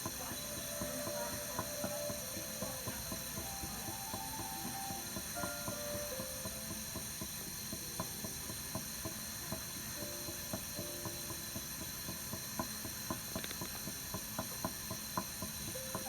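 Teeth grinding (bruxism): a run of irregular sharp clicks with short squeaky scrapes as the teeth rub against each other.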